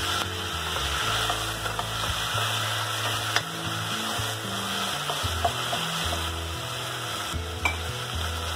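Chopped tomatoes and onions sizzling in hot oil in a stainless steel pot, stirred with a spoon, with a couple of sharp clicks of the spoon against the pot.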